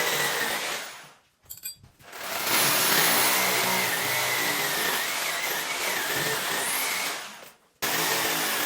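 A woodworking power tool running steadily with a dense hiss and a wavering high whine. The sound drops away briefly twice, fading out about a second in and cutting back in abruptly near the end.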